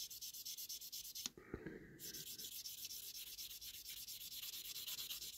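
Fine-grit sanding stick rubbed rapidly back and forth over a clear plastic model-car window unit, a quick, even run of short scratchy strokes. The strokes pause briefly just over a second in, with a small click, then carry on.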